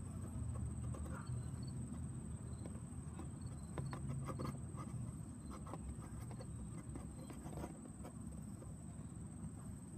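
Steady high-pitched insect trill, unbroken, over a low rumble of wind or handling noise with a few faint clicks.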